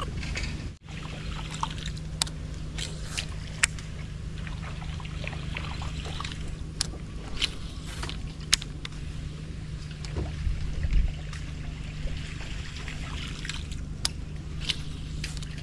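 Steady low hum of the fishing boat's motor, with scattered sharp clicks. The sound drops out briefly just under a second in.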